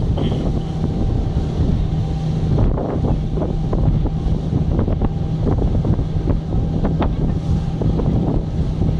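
Open speedboat running at speed: heavy wind buffeting on the microphone over the steady drone of the boat's engine and the rush of spray and water against the hull.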